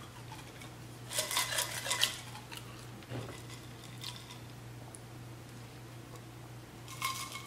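A drinking glass and tableware clinking and rattling in two short bursts, about a second in and again near the end, as the glass is picked up and handled.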